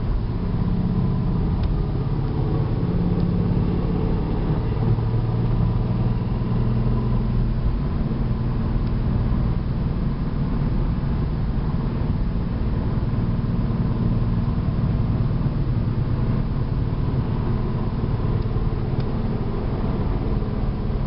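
2008 Ford Mustang GT's 4.6-litre V8 engine running as the car drives along, heard from inside the cabin: a steady drone with road noise, its pitch shifting a few times.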